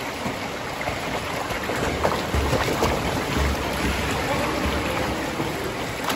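Water splashing and churning from a swimmer's kick as he moves along the pool holding a kickboard, with a few low thumps in the middle.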